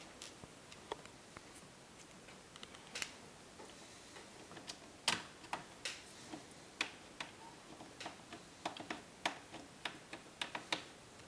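Irregular light clicks and taps of a small screwdriver and fingers on a laptop's plastic screen bezel as its screws are set back in, coming more often and a little louder through the second half.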